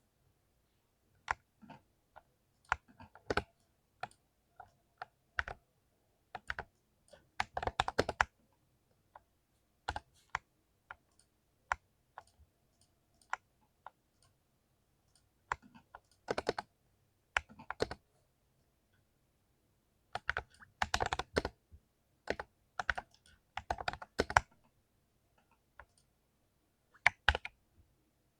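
Keys on a mechanical keyboard being typed on in irregular bursts: single clicks and quick flurries of keystrokes with short pauses between.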